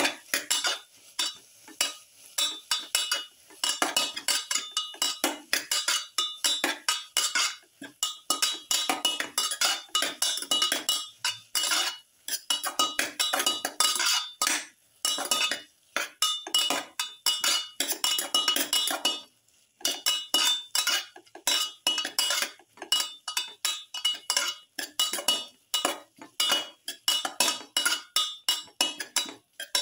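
Metal spoon scraping and clinking against a metal pan in rapid repeated stirring strokes, a few a second, while sliced onions and tomato are tossed. There is a short break about two-thirds through.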